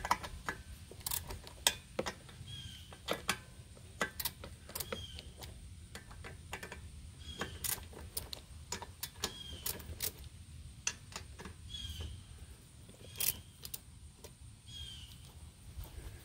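Hand ratchet clicking in short, irregular strokes while loosening the cylinder head bolts on a Briggs & Stratton lawnmower engine.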